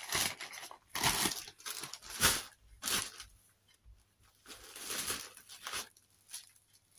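Plastic mailer bag rustling and crinkling in several short bursts as fabric is pulled out of it by hand.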